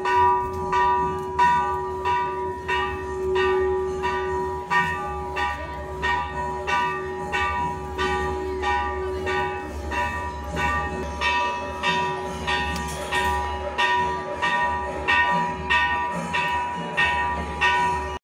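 Temple bell struck over and over in a steady rhythm, about one and a half strokes a second, each stroke ringing on into the next. Under it a steady lower tone is held and stops about halfway through.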